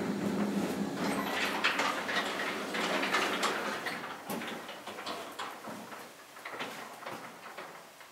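Service elevator's drive hum dying away in the first second or two, then scattered clicks and rattles from the car and its doors, growing quieter.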